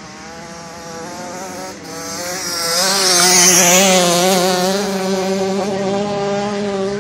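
Dirt bike engines revving as riders lap a dirt flat track, the pitch wavering with the throttle. One bike grows louder to a peak about three to four seconds in as it passes nearer, then eases off a little.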